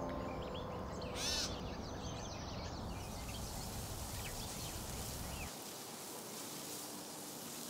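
Outdoor birdsong: many short chirps over a steady background hiss, with one louder, harsh call about a second in.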